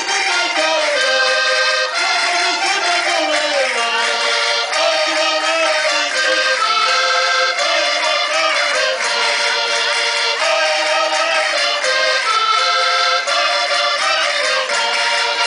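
Lively traditional folk dance music led by an accordion, playing a quick melody without a break.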